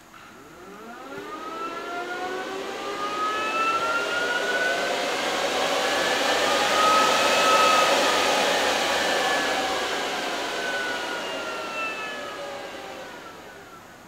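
Power Jack inverter's cooling fans run under a remote fan test. They spin up with a rising whine over the first few seconds and are loudest about halfway through. They then wind down with a falling whine that fades out near the end.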